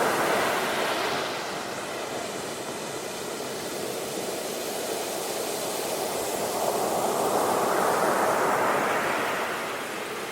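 Ocean surf breaking on a beach: a steady rush of waves that swells to a peak about eight seconds in and then eases off.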